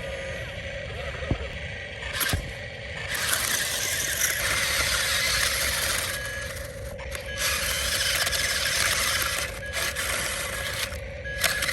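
Heavy construction machinery working: spells of loud scraping lasting a few seconds each, with a steady hum underneath and a couple of sharp knocks in the first few seconds.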